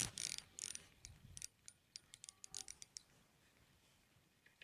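Spinning reel being handled: a rustle of hands close to the microphone, then a string of small, irregular mechanical clicks from the reel for about two seconds.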